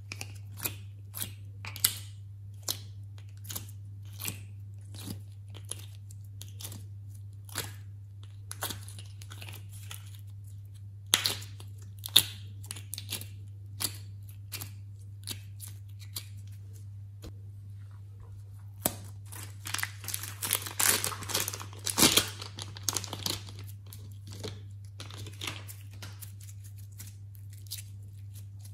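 Close-up crisp clicks, crackles and crinkles of hands handling small plastic containers and peeling clay and slime out of them. The sounds come as scattered single clicks, then a dense run of crackling about two-thirds of the way through.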